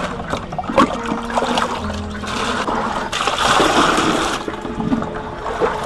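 Water splashing and trickling in plastic buckets as it is scooped and poured with a plastic dipper, in uneven splashes.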